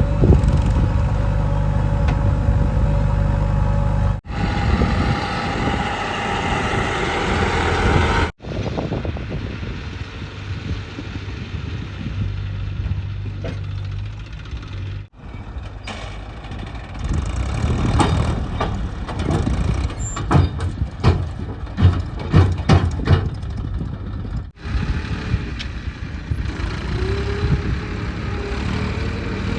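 Diesel engines of a JCB 3DX backhoe loader and tractors running under work, broken by several abrupt cuts. A run of sharp knocks and clanks comes in the middle, and an engine revs up near the end.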